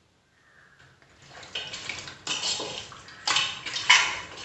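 A hand mixing raw chicken pieces in a pressure cooker: wet squelching and rustling in uneven strokes, starting about a second in.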